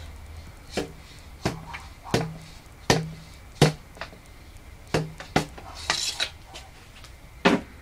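Hollow knocks and clicks from handling the PVC potato cannon's chamber and fittings while loading it as a breech loader, about eight sharp knocks at irregular intervals, several with a short hollow ring of the pipe, and a brief scraping rustle about six seconds in.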